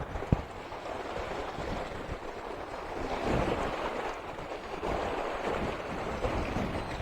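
Gusty wind buffeting the microphone over storm waves washing onto the shore, swelling louder about three seconds in. A single sharp knock comes just after the start.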